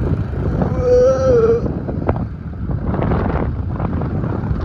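Wind buffeting the microphone over a motorbike's running engine and road noise during a ride. About a second in, a wavering pitched tone sounds for about a second.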